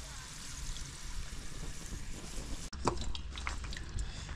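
Hot cooking oil sizzling in a frying pot, a steady hiss. After a brief dropout a little past halfway, the hiss carries on with scattered small pops and crackles.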